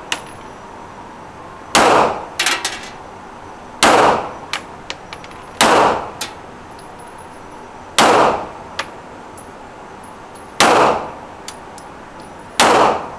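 Semi-automatic pistol fired six times at a steady, unhurried pace, about two seconds apart, each loud shot echoing briefly in an indoor range. Fainter sharp clicks follow some of the shots.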